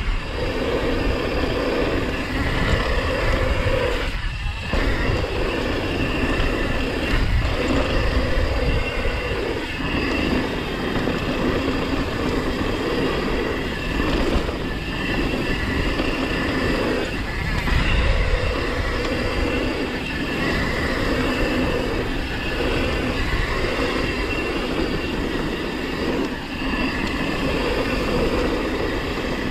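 Downhill mountain bike riding fast on a packed-dirt jump trail: tyres rolling and rumbling over the dirt with wind buffeting the camera microphone, the noise dipping briefly every few seconds.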